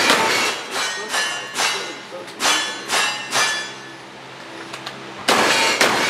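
Single-action revolver fired rapidly at steel targets, about five or six shots each followed by the ring of the struck plate. After a pause of a second or two comes a louder, longer shotgun blast near the end.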